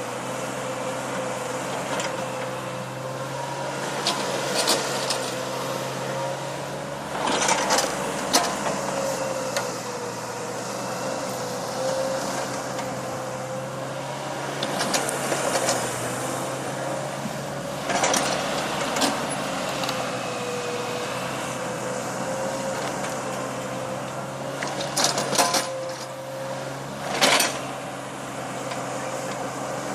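Small backhoe's engine running steadily with a slightly wavering whine, while the digging gear clanks and scrapes in bursts several times.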